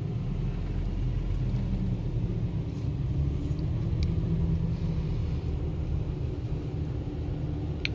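Mercedes-Benz W123 sedan driving, heard from inside the cabin: a steady low engine and road rumble, with a faint tick about four seconds in and another near the end.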